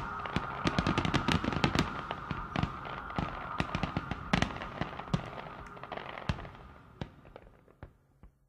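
Fireworks crackling and popping in a dense run of sharp cracks that grows sparser and fades away toward the end.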